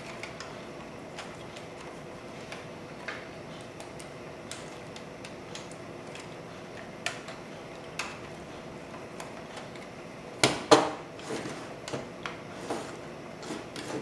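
Plastic Lego puzzle box being handled and turned in the hands: scattered light plastic clicks and taps, with a louder cluster of knocks about ten and a half seconds in as it is knocked against and set on the wooden table.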